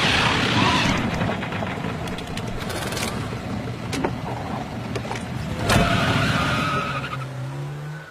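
Car sounds: engine and tyre noise with sharp clicks, a loud hit a little before the end, and an engine pitch climbing near the end.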